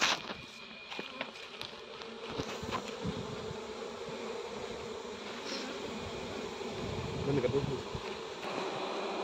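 Honeybees buzzing around an opened hive: a steady hum that grows louder over the first few seconds. One sharp knock right at the start.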